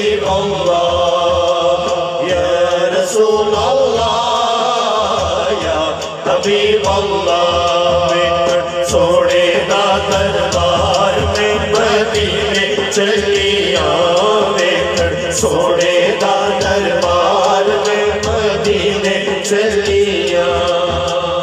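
A naat sung live through a PA system: a man's drawn-out, ornamented singing over a steady hand-drum rhythm.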